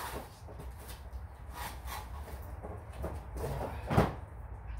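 Cardboard boxes and packaging being handled: scattered short rustles and scrapes, with one sharp knock about four seconds in, the loudest sound.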